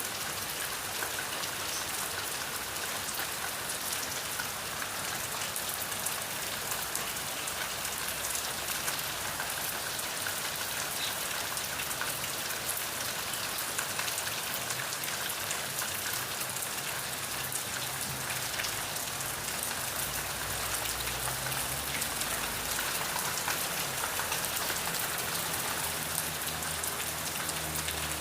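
Steady rain falling, a dense even hiss of many individual drop ticks at constant strength. A faint low hum joins under it about twenty seconds in.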